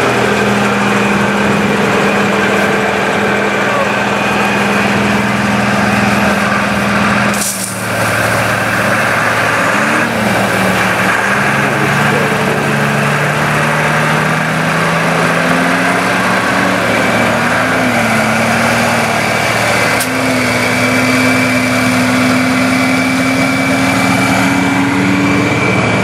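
Fire brush truck's engine and pump running steadily while spraying water, with a hiss over the engine note. The pitch drifts up and down and climbs slowly in the second half, with a brief dropout about a quarter of the way in.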